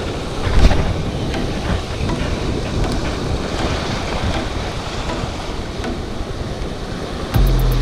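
Surf washing over shoreline rocks with wind buffeting the microphone, and a brief louder whoosh about half a second in. Near the end, background music with a steady beat comes in.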